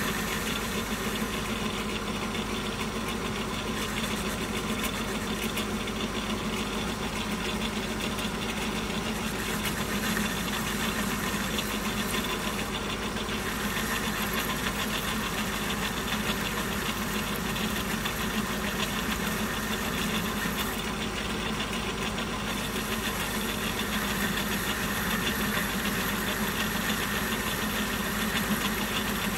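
Centre lathe running with a steady hum as the tool is hand-fed through the compound rest, taking a taper-turning cut on a metal workpiece.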